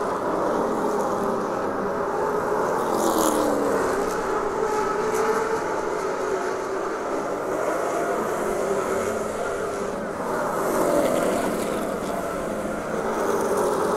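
Race car engine running at racing speed, its pitch rising and falling without a break.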